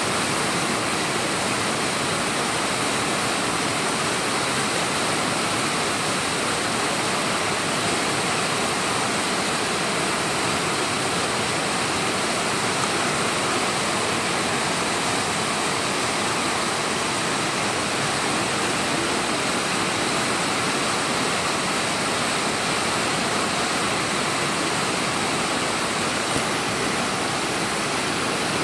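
Swift mountain river running over rapids: a steady, unbroken rush of white water.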